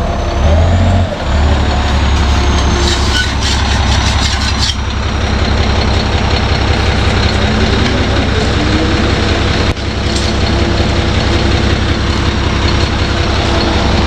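A heavy vehicle engine running steadily with a deep low rumble, and a short run of light clicks about three to five seconds in.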